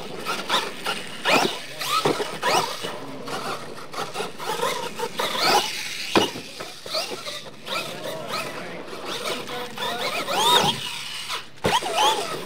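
Electric RC monster truck motor whining, its pitch sweeping up and falling back again and again as the throttle is worked. There is a sharp thud about six seconds in as the truck lands a jump, and another near the end.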